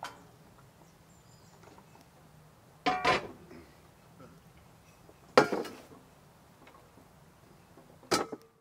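Metal cookware clinking three times, a couple of seconds apart, each strike ringing briefly.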